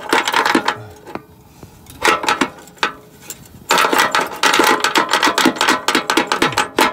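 Rapid metallic clicking and rattling as a hitch bolt on a fish wire and its spacer plate are worked through the access hole inside a car's steel frame rail. It comes in spells, dropping away briefly twice before picking up again about 4 seconds in.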